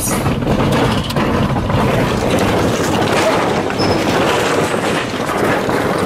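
Steady rumble and tyre noise of a car driving across a steel suspension bridge, heard from inside the car.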